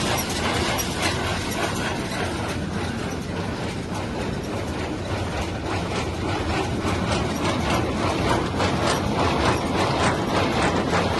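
John Deere square baler running on a Dexter tractor, a continuous mechanical clatter of rapid clicks over the steady low running of the tractor engine. It is being run to check that everything on it works.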